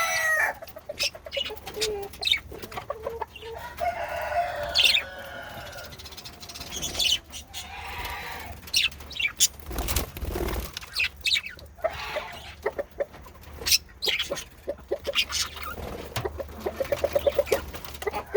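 Male budgerigars chattering: a busy run of clicks, short chirps and warbles, with a dull bump about halfway through.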